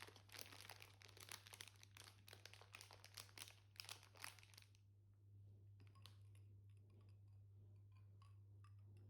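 Faint crinkling and crunching, like something being handled close by, for about five seconds, then only scattered small ticks over a steady low hum.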